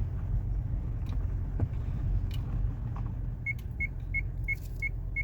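Low steady rumble of the Kia Sorento heard in its cabin, with a few light clicks; about three and a half seconds in, a dashboard warning chime starts beeping about three times a second.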